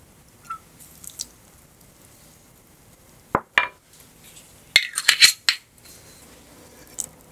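A spoon clinking and tapping against a glass mixing bowl: a few light clinks, a pair a little after three seconds, then a quick cluster of louder clinks about five seconds in.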